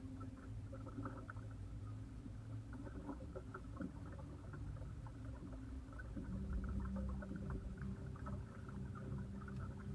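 Small boat motor running slowly with a low, steady hum that shifts up in pitch and gets a little louder about six seconds in, with faint light ticks over it.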